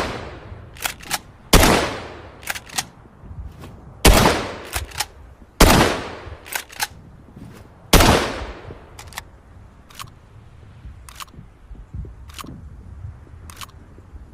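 Gun sound effect: four loud single shots, each with a long ringing tail, one to two and a half seconds apart, with lighter clicks in between. Over the last six seconds only faint clicks come, about one a second.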